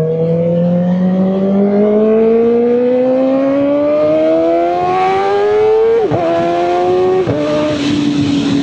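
Kawasaki Ninja ZX-4RR's 399 cc inline-four accelerating under way, its pitch rising steadily for about six seconds. It then changes up through two quick gearshifts, about six and seven seconds in, and settles into a steady lower-rev cruise.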